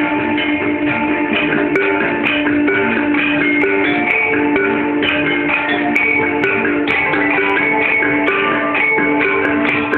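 Javanese gamelan ensemble playing: struck metallophones sound a quick, steady run of ringing notes.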